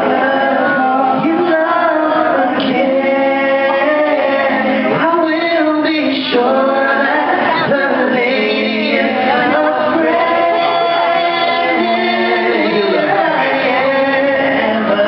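Music with several voices singing together, both male and female voices heard, at a steady loud level.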